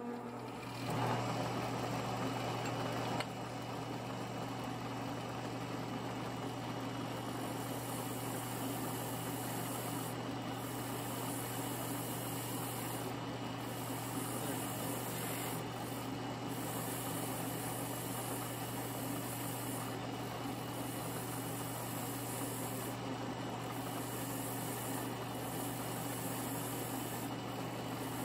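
Drill press running steadily with a wire wheel spinning in its chuck, a steady hum over a hiss, as a bolt's threads are held against the wire wheel to scrub off old thread locker. It is louder for the first few seconds.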